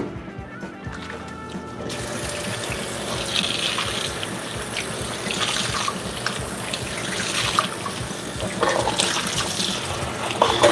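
Kitchen faucet running steadily into a stainless steel sink, the stream starting about two seconds in, while a sponge and dishes are rinsed under it. A few knocks of dishes come near the end.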